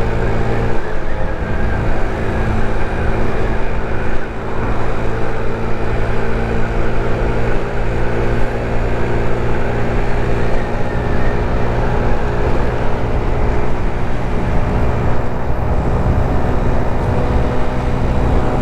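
GY6 50cc scooter's four-stroke single-cylinder engine running steadily while riding, with wind rumbling on the microphone.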